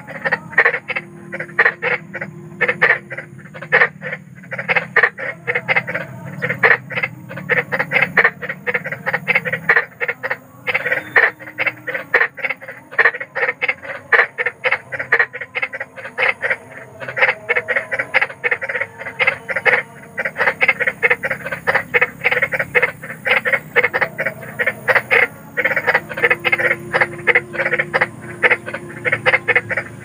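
A chorus of frogs croaking: a dense, irregular run of short calls, several a second and overlapping, over a low rumble.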